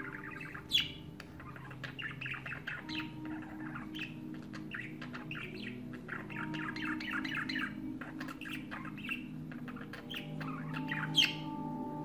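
Male budgerigar warbling its courtship song to hens: a continuous rapid chatter of chirps, clicks and short whistles, broken by two louder, sharp rising squawks, one about a second in and one near the end.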